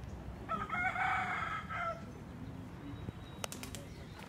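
A rooster crowing once: a single stepped call of about a second and a half, starting about half a second in.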